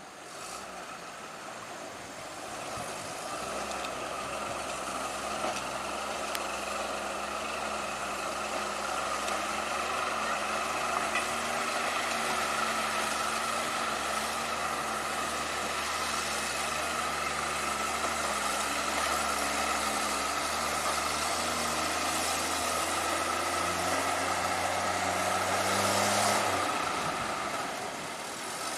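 Old Soviet ZIL truck engine running steadily at a low, even pitch over a broad hiss. Near the end the engine speeds up slightly, then drops away.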